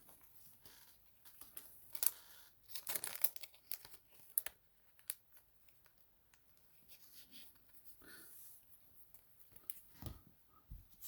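Soft crinkling and rustling of thin plastic with scattered light clicks, from trading cards being handled and slid into penny sleeves and top loaders.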